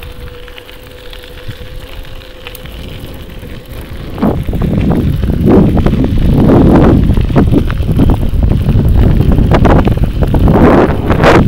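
Wind buffeting the microphone. A low rumble at first turns into loud, gusty rumbling from about four seconds in.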